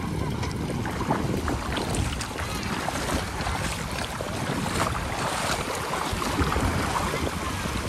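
Water splashing and sloshing as people wade through shallow river water and a scooter is pushed through it, with many small splashes throughout, and wind on the microphone.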